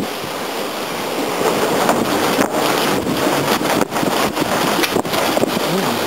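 Strong gusting windstorm wind blowing over the microphone: a loud rushing noise that wavers in strength.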